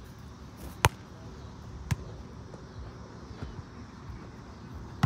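Two sharp smacks of a volleyball about a second apart, the first the louder, over a steady gym background hum.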